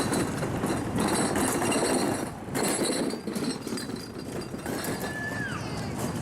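Tokyu Oimachi Line electric train running slowly into the station, its wheels knocking unevenly over rail joints. About five seconds in there is a short high squeal that drops in pitch.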